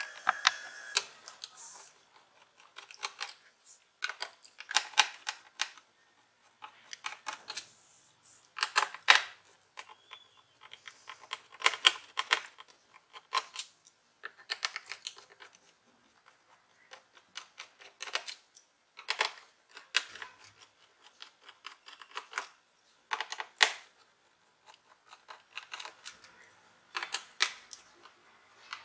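Small screwdriver taking the screws out of a Lenovo V110 laptop's plastic bottom cover: bursts of sharp clicks and ticks, a cluster every second or two.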